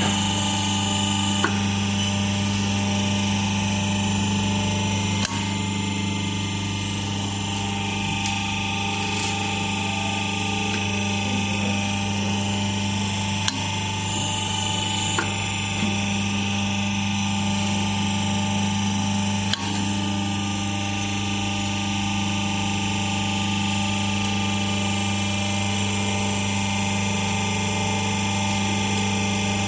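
Y120D hydraulic hose crimping machine running with a steady, even hum, with a few brief sharp clicks.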